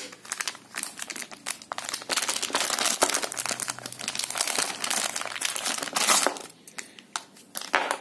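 Clear plastic resealable packaging bag crinkling as hands pull it open, with rapid crackles for about six seconds before it goes quieter near the end.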